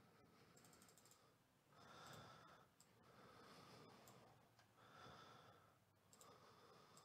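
Near silence: faint, slow breathing swells every second or two, with a few faint clicks.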